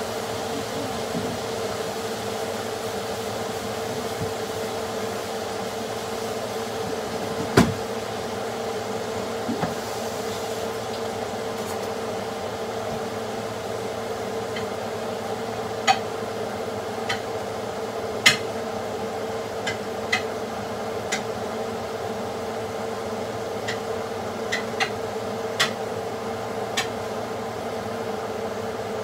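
Steady machine hum with a constant mid-pitched tone, and a dozen or so sharp taps and clicks scattered through it, most of them in the second half.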